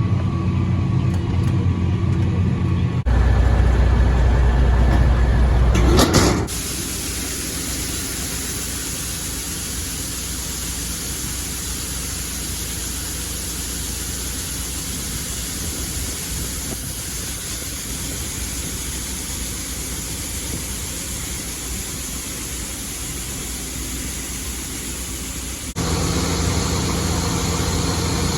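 Diesel farm machinery engines running, heard across several abrupt cuts. There is a steady engine note, then a louder low rumble for a few seconds, then a long even rushing noise, and the engine note returns near the end.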